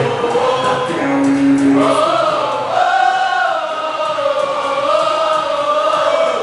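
Choir singing a Portuguese gospel worship song, holding long notes whose pitch rises and falls.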